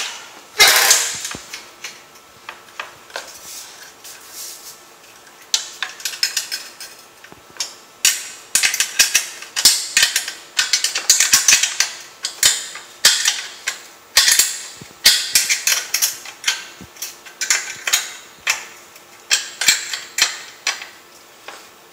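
A 7/16 wrench working a nut on a chainsaw's metal mounting hardware, giving runs of quick metallic clicks and clinks, a short cluster near the start and dense runs from about five seconds in.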